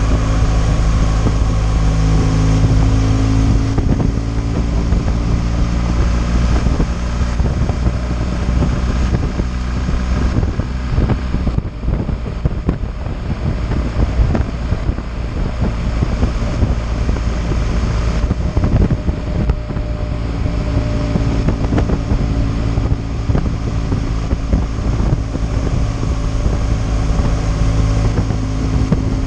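BMW R 1200 GS water-cooled boxer-twin motorcycle engine running steadily at road speed, with wind rushing over the microphone. About midway the engine note sinks under the wind for several seconds, then comes back.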